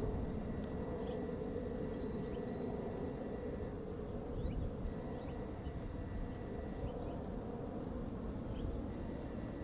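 Outdoor ambience: a steady low rumble with faint, short high chirps scattered throughout, typical of small birds calling in the distance.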